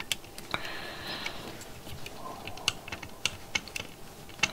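Irregular small clicks and taps of tweezers and component leads against a perforated circuit board held in a clamp, with a brief scraping sound about half a second in.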